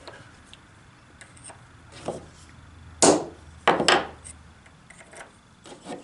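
Hammer tapping a transfer punch to mark hole positions in Perspex: a few sharp metal taps, the loudest about halfway through and a quick pair just after, with lighter knocks before and near the end.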